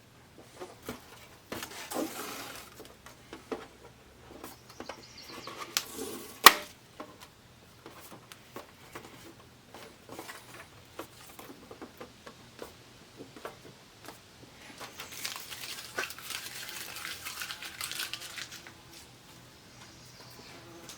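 Hands working on a TV's LED backlight strips and panel: scattered light taps and clicks with spells of rustling and crinkling, like tape being handled. One sharp click about six and a half seconds in is the loudest sound.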